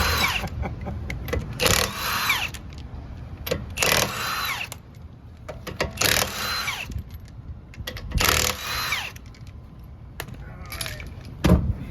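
Impact wrench on a car wheel's lug nuts, run in five short bursts about two seconds apart. Each burst has a whine that falls in pitch as the tool spins down.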